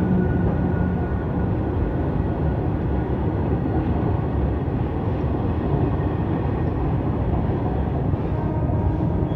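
Open-top steel freight wagons of a goods train rolling past close by: a steady rumble of wheels on the rails. A low hum, left by the electric locomotive that has just passed, fades out in the first second and a half.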